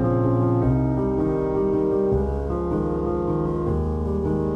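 Background piano music: slow, sustained chords that change every second or so.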